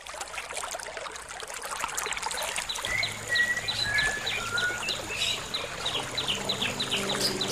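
Birds chirping and whistling rapidly over a steady rush of running water, with low held notes of music coming in about three seconds in.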